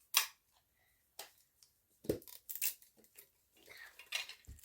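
Hands handling and opening a toy package: scattered sharp clicks, taps and short crinkles of packaging, bunched together about two seconds in and again near the end.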